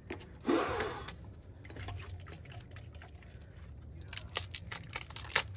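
Can of spray foam insulation hissing briefly about half a second in as foam is sprayed into a gap between logs and plywood, followed near the end by a quick run of sharp clicks and taps from handling the can.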